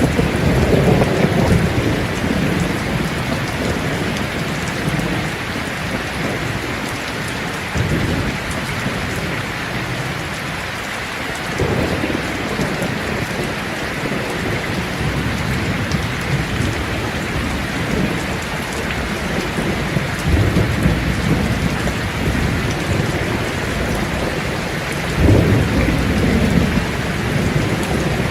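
Steady rain falling, with low rumbles of thunder rising and fading several times; the strongest roll comes near the end.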